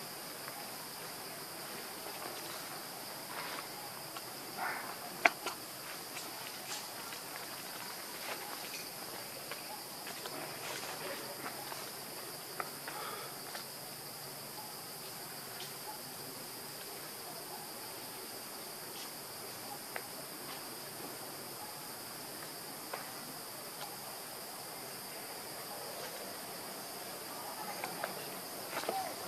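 Steady high-pitched insect chorus, with scattered light clicks and rustles and one sharp snap about five seconds in.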